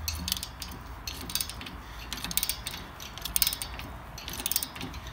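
Socket ratchet clicking in repeated back-strokes, a burst of clicks about once a second, as it works a rusted tie rod end nut loose.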